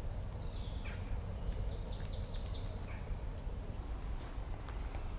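A songbird singing over steady low outdoor noise: a short phrase about half a second in, then a quick run of high repeated notes, then a few short high whistles.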